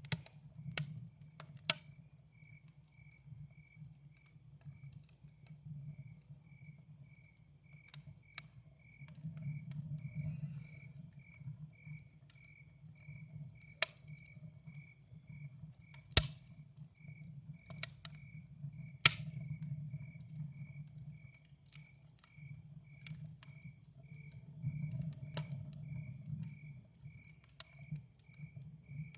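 Campfire crackling, with sharp single pops every few seconds, the two loudest a little past halfway, over a low steady rumble. A cricket chirps steadily behind it, about two chirps a second.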